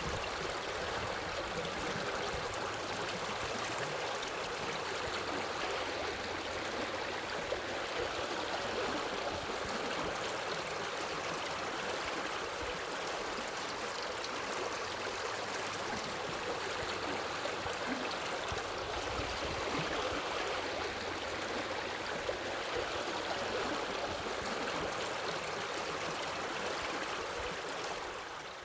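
Steady rushing of flowing water, like a stream, with no pauses or changes.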